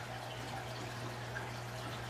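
Steady trickling, dripping water noise over a constant low hum, with no separate events.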